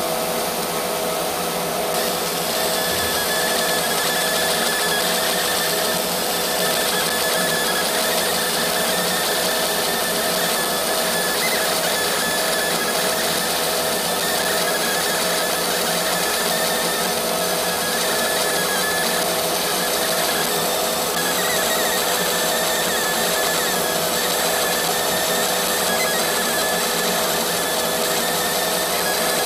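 Laser marking machine running continuously while it engraves a black metal nameplate: a steady mechanical whir with a constant hum and a higher whine.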